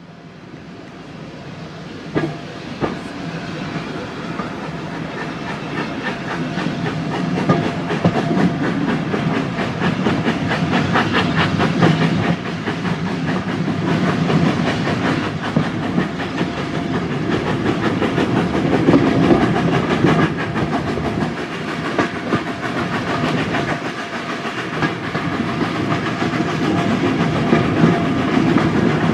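Hunslet 0-6-0 saddle-tank steam locomotive working hard up a bank, its rapid exhaust beats and hiss heard from a carriage window together with the clatter of the coaches' wheels on the rails. The sound fades in at the start and grows louder.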